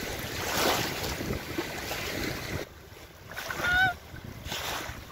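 Wind buffeting the microphone over choppy lake water lapping in the shallows. After a sudden drop in the wind noise, a mute swan gives one short nasal call with a slight upward bend, about three and a half seconds in.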